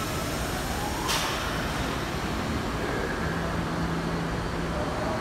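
Kawasaki R68A subway train running through the underground station: a steady rumble with a faint motor whine, a sharp click about a second in, and a low hum for a second or two past the middle.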